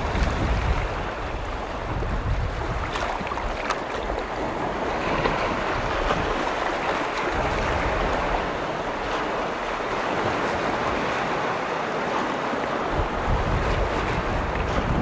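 Waves from a large freshwater lake washing and breaking against the shore in a steady, continuous wash. Wind rumbles on the microphone, strongest in the first second.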